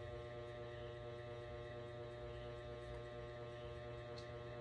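A steady electrical hum with several overtones held at one pitch, and a faint tick near the end.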